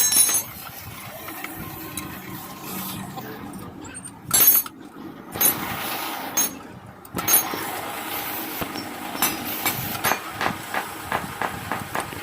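Metal hand tools working on a motorcycle's rear chain and sprocket assembly during disassembly: several sharp metallic knocks and clanks, then a run of quick, even clicks, about two or three a second, through the second half.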